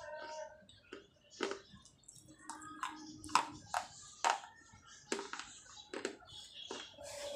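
Dry baked terracotta crunching between the teeth as it is chewed: a string of short, sharp crunches, the loudest about three and a half and four and a half seconds in. Faint singing and music carry on in the background.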